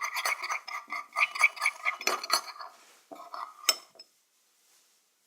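Spoon stirring slime in a bowl: rapid scraping and clinking against the bowl, thinning out after about three seconds to a few strokes and one sharp clink, then stopping.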